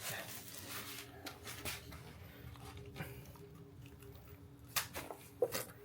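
Faint rustling of packaging with a few sharp clicks, about three seconds in and twice near the end, as plastic zip ties are snipped off a new bike, over a faint steady hum.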